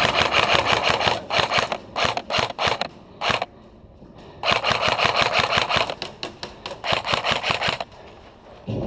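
Airsoft guns firing full-auto bursts of rapid clicking shots: a long burst at the start, several short bursts, then two longer bursts in the second half.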